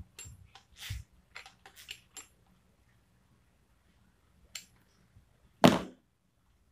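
Metal clicks and small rattles of a drill bit being seated in a drill's keyed chuck as the chuck is turned by hand, a cluster of them in the first two seconds, then a single louder knock near the end.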